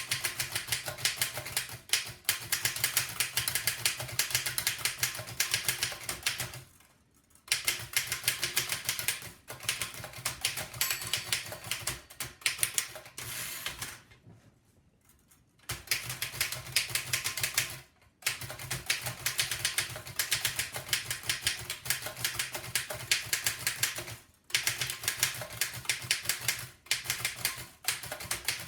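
A 1905 Fox No. 3 upstrike typewriter typed on at speed: long runs of rapid keystroke clacks, broken by brief pauses every few seconds.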